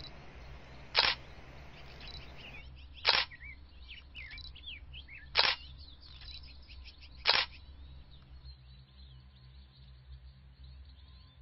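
Four camera-shutter clicks about two seconds apart, over birds chirping faintly in quick rising and falling notes.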